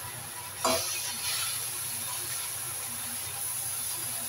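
Stir-fry sizzling in a hot wok with oil. A sudden loud burst of sizzle comes under a second in as wide rice noodles are tipped in from a metal bowl. A steady hiss follows as they are tossed with a spatula.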